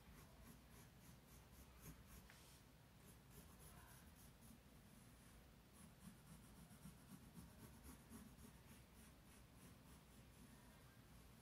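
Faint scratching of a graphite pencil on sketchbook paper, drawn in short repeated strokes as a spiral outline is sketched.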